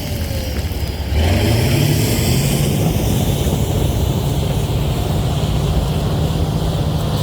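Caterpillar D9L bulldozer's turbocharged V12 diesel (Cat 3412) running. It eases off briefly, then revs up about a second in and holds steady at the higher speed.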